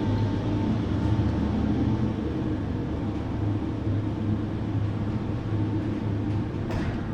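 Steady low mechanical hum of machinery running, with a brief click near the end.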